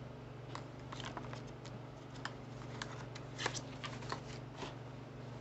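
Cardstock-and-chipboard notepad covers and a clear plastic pen being handled on a craft table: scattered light clicks, taps and paper rustles, over a steady low hum.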